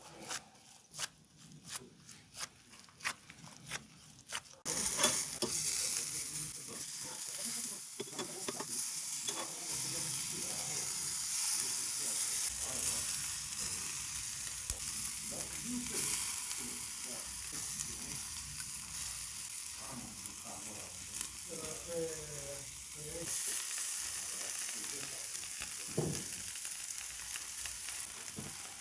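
Soft squelching clicks of gloved hands pressing raw ground beef flat on a wooden board. After about five seconds the sound cuts to a steady sizzle of beef burger patties cooking over lump charcoal on a kamado grill's grate, with a few light knocks.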